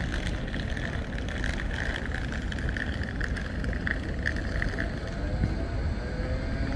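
Street traffic rumble as a Bombardier Flexity 2 tram approaches slowly. A high wavering squeal comes and goes through the first five seconds, and a faint rising whine starts near the end.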